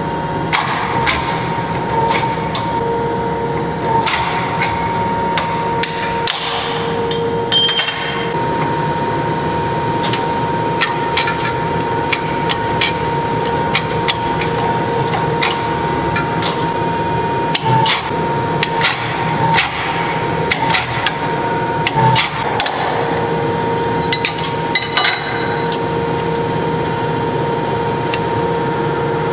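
Power hammer striking a glowing steel axe blank with irregular, sharp blows as a punch is driven through the hot steel to open the axe's eye. A steady machine hum runs underneath.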